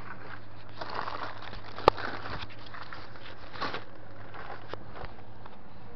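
Handling noise of a handheld camera: rustling and rubbing with scattered clicks and one sharp loud click about two seconds in, over a steady low hum.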